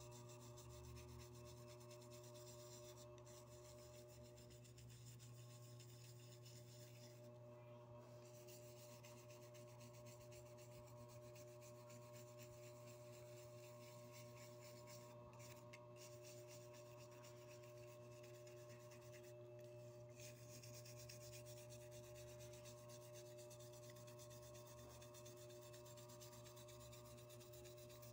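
Faint, steady scrubbing of toothbrush bristles rubbing metal polish over a metal security guard badge, stopping briefly three times.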